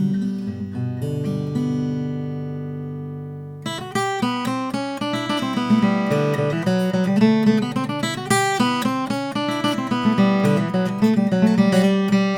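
Martin 00-42 acoustic guitar, with an Italian alpine spruce top and Madagascar rosewood back, being played solo. A chord rings out and fades for about three seconds, then a lively run of plucked notes begins and carries on.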